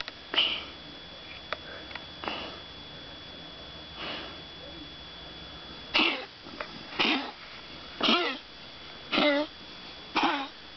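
Domestic tabby cat giving short strangled meows with its throat pressed against the edge of a wooden box. The calls are few and faint at first, then come loud and regular, about one a second, in the second half.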